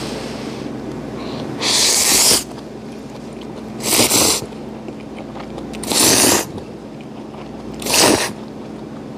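A person slurping hot ramen noodles off chopsticks: four loud slurps about two seconds apart.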